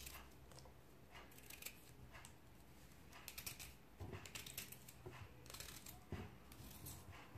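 Faint knife cuts through a piece of fresh ginger held in the hand, with light scattered clicks as the pieces drop into a plastic chopper bowl.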